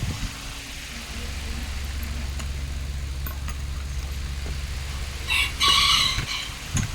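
A rooster crowing once, a pitched call of a little over a second near the end, over a steady low hum.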